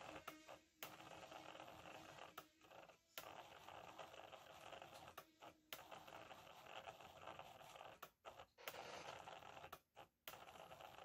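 Faint mechanical whirring and chattering of an Atari 1020 pen plotter's motors as it draws, sped up about five times. Brief pauses and a few short clicks break it, twice in the second half.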